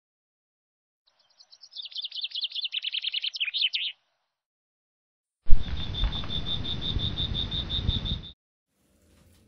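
A bird chirping in a quick twittering run for about three seconds. After a short gap comes a high chirp repeating about seven times a second over low rumbling outdoor noise, starting and stopping abruptly, as in an edited nature ambience.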